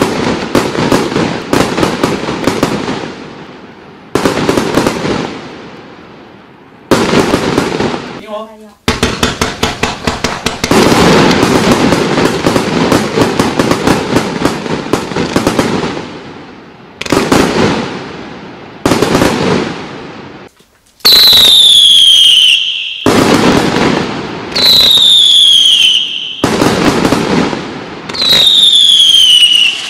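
A Salute Box fireworks cake firing volley after volley of rapid, loud bangs, each volley trailing off in echo before the next starts. In the last third, three volleys each open with a falling whistle before the bangs.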